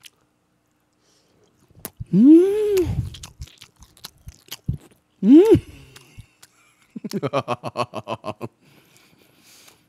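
A man chewing a mouthful of grilled pork close to the microphone, with wet mouth clicks, letting out two long moans of enjoyment that each rise and then fall in pitch. About seven seconds in he breaks into a short burst of laughter.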